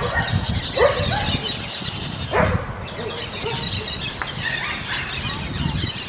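Parakeets chattering: a constant run of short, high chirps and squeaks, broken by loud, harsh squawks right at the start, about a second in, and around two and a half seconds.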